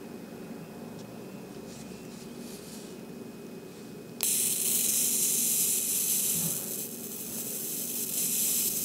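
Explorer electric arc lighter switched on about four seconds in, its high-voltage arc buzzing steadily as the end of a braided nylon line is held in it to melt.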